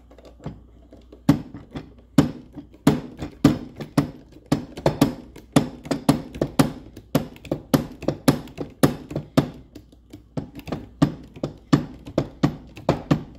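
IBOSAD GC-1 manual hydraulic copper press tool being pumped stroke after stroke, a sharp click on each stroke of the handle, about two a second, starting about a second in. The jaws are being closed around a copper press coupling to crimp it onto the pipe.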